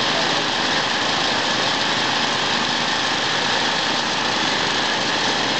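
An engine running steadily at the scene, a continuous drone that holds level with no change in pitch.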